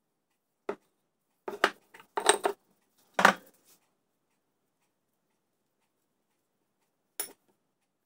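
A handful of short clinks and knocks of a ceramic sugar pot being handled and set down on a table, bunched in the first few seconds. A single light tap follows near the end.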